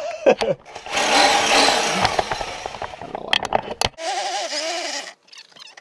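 Power tool cutting a hole for a speaker through a sailboat's cabin panel: a rough cutting noise for about two seconds, followed by a few clicks.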